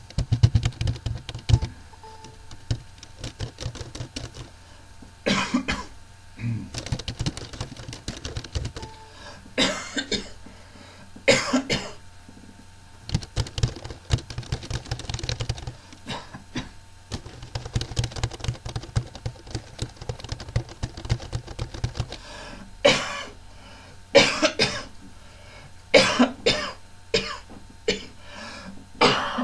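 A person coughing again and again: many short coughs, some single and some in quick runs. Several loud ones stand out, with a close run of them in the last few seconds.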